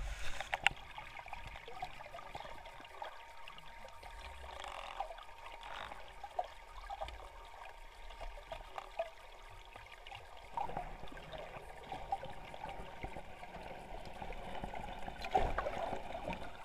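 Faint water noise heard through the microphone of an underwater camera submerged in murky water, with scattered small clicks and knocks; it grows busier about ten seconds in.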